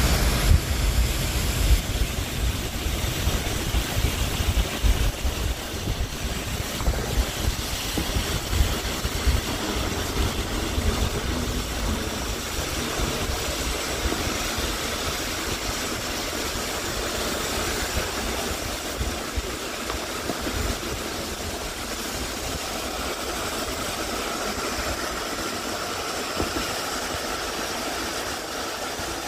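Road noise heard from inside a moving car: a steady rush with a low rumble that is heaviest for the first dozen seconds and then eases off.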